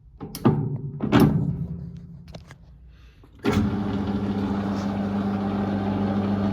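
Two knocks, then about three and a half seconds in the Warco GH1330 metal lathe starts up abruptly and runs on at slow speed with a steady hum, spinning the chuck while its runout is checked.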